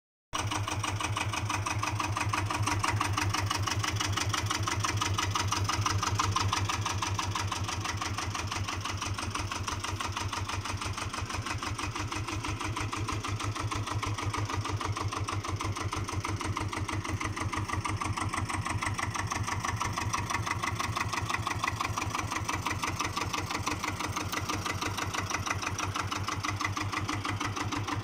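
Allgaier AP17 tractor's single-cylinder air-cooled diesel engine idling steadily with an even, rapid chugging.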